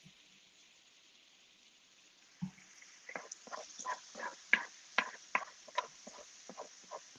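A spatula stirring and tapping in a skillet of spinach: a soft thump about two and a half seconds in, then a run of short, irregular knocks and scrapes, two or three a second, over a faint hiss.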